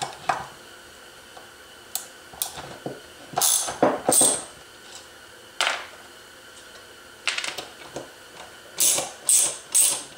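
Steel clutch parts and a hand tool clinking against each other and the aluminium casing of a 1955 Zündapp R150S scooter engine as the clutch is taken apart. About a dozen short, sharp metallic clinks and clicks at uneven intervals, some ringing briefly.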